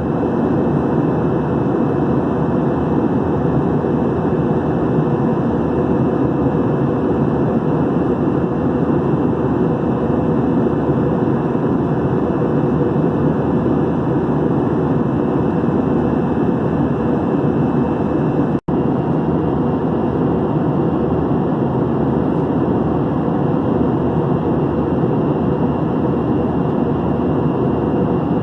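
Steady cabin roar inside an Airbus A321-211 airliner in flight: engine and airflow noise with a faint steady hum. It drops out for an instant about two-thirds of the way through.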